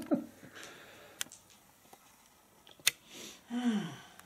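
Mostly quiet room broken by sharp clicks, a small one about a second in and a louder one near three seconds, then a short low voice sound falling in pitch near the end.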